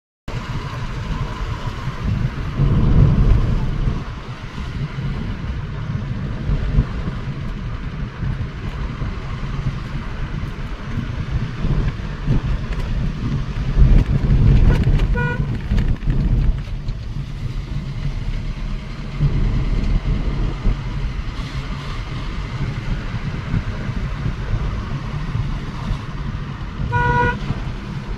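A car driving on a winding hill road, heard from inside as a steady low rumble of road and engine noise. A vehicle horn gives a short toot about halfway through and another shortly before the end.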